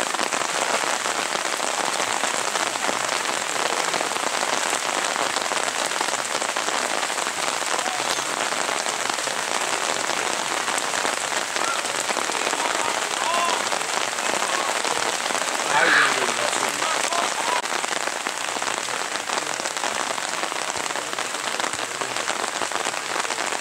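Steady hiss of rain falling, with a brief shout about sixteen seconds in.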